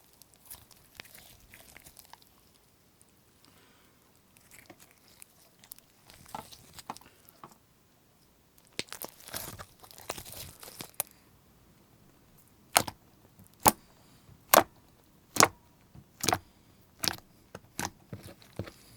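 Slime being worked by hand: soft crackling squishes, then about halfway through a run of about nine sharp clicking pops, roughly one a second, as the slime is pressed.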